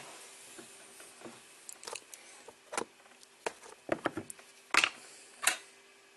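Scattered clicks and knocks of tools and small parts being handled at a workbench, coming closer together in the second half, over a faint steady hum.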